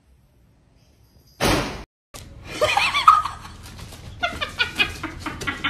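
A short, sharp burst of noise about one and a half seconds in, then people laughing and shrieking.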